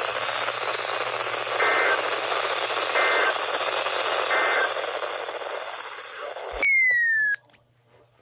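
Emergency alert broadcast over a hissing, static-laden radio signal: three short bursts of two-tone EAS header data chirps, about 1.4 s apart. After them, a loud falling tone about a second long, then the audio drops to near silence.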